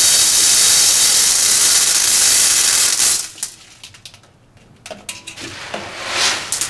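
BBs poured from a bottle into a metal pan, a steady rushing stream for about three seconds, then scattered clicks and rattles.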